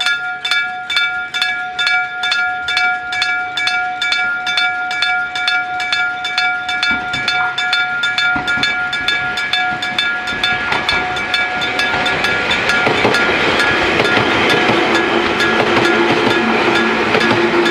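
Electric-bell railway crossing signal ringing with rapid, even strokes, one clear ringing tone with several higher overtones. About seven seconds in, a train is heard approaching over the bell, growing louder until it passes the crossing with a rushing noise and a low hum near the end.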